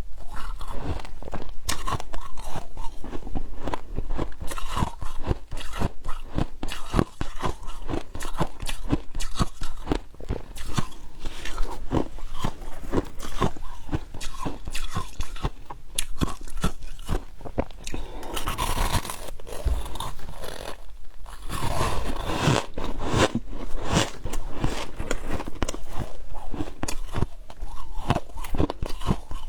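Close-miked chewing of frost chunks: dense, continuous crunching of ice, with louder bites a little past halfway.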